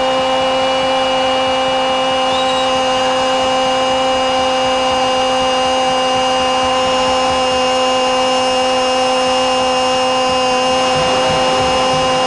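A football commentator's long goal cry held on one steady pitch, rising slightly near the end, over the steady noise of a stadium crowd.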